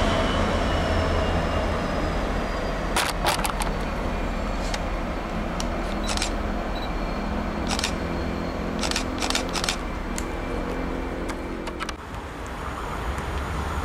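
Class 66 diesel locomotive with a two-stroke V12 engine, running light and moving away, its engine drone slowly fading. Sharp clicks come now and then from about three seconds in.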